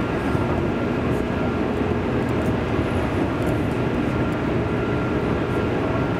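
Interior running noise of a JR East 205 series electric multiple unit at a steady speed: an even rumble of wheels on rail with a few faint steady tones over it.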